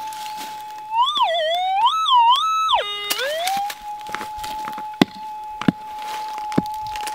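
Metal detector's audio tone holding a steady pitch, then warbling up and down for about two seconds around a second in, dropping low and gliding back up to the steady tone. Several sharp thuds of a pick striking the dirt follow in the second half.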